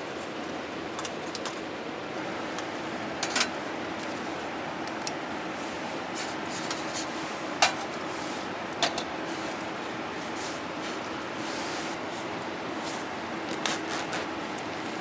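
Steady rain hiss, with a few sharp clicks and knocks of camp gear being handled now and then.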